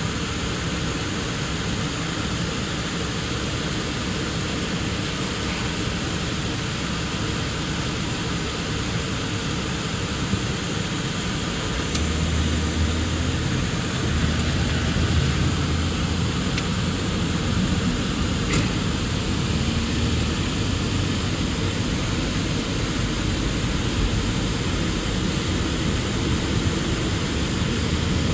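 Car cabin noise: a steady hiss of engine and road noise. A low engine drone grows louder about twelve seconds in as the car pulls away and picks up speed.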